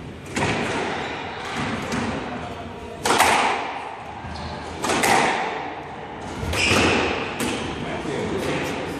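Squash ball struck by racquets and smacking the court walls during a rally: about five sharp hits, spaced one to three seconds apart, each ringing on in the echoing court.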